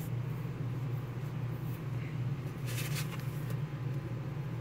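A paper booklet being closed and handled, with a brief papery rustle about three seconds in, over a steady low hum.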